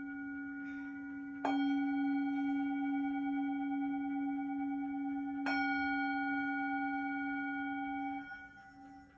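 Hand-held Tibetan metal singing bowl struck twice with a wooden mallet, about four seconds apart. Each strike renews a steady, low ring with several higher overtones. Near the end the ring quickly dies down to a faint, wavering hum.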